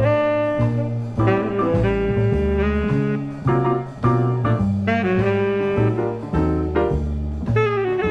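Jazz recording of a tenor saxophone playing a quick melodic line, with low bass notes stepping along beneath it.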